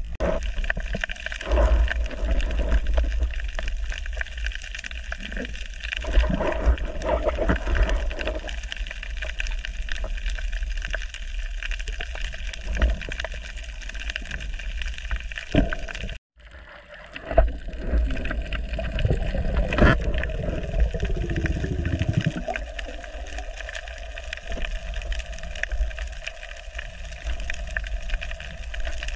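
Underwater sound of a scuba diver breathing through a regulator: surges of exhaled bubbles gurgling every few seconds over a constant low rumble and faint steady hum. The sound cuts out for a moment a little past halfway.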